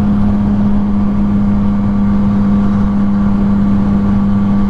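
Yamaha FZ-09's 847 cc inline-three engine running at a steady pitch under a held throttle while riding, with wind rumble on the helmet microphone.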